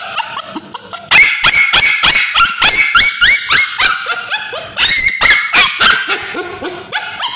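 Male Bichon Frise screaming: a fast run of short, high yelps, several a second, easing off near the end. The dog is crying out in distress while ointment is applied to his scabies-affected tail.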